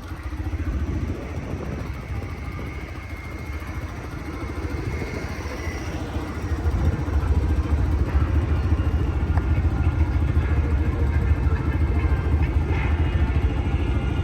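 Drag car engine idling with a low rumble, growing louder about halfway through.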